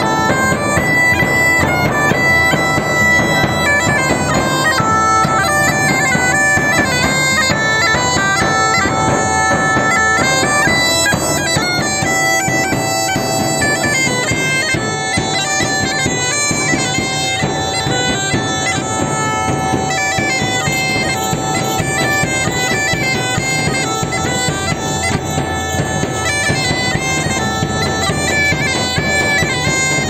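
Bagpipes playing a folk tune: a steady drone under a melody of changing notes.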